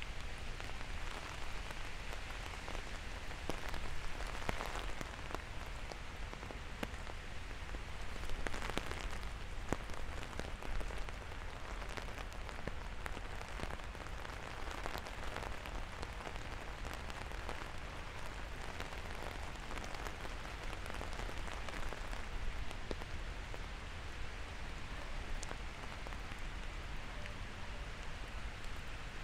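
Steady rain pattering on hard surfaces, a dense hiss of many small drop ticks over a low rumble.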